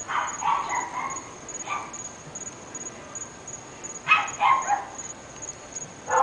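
Dogs barking in short bursts: a few quick barks in the first second, one more soon after, then two barks close together about four seconds in. A faint, steady high pulsing chirp runs underneath.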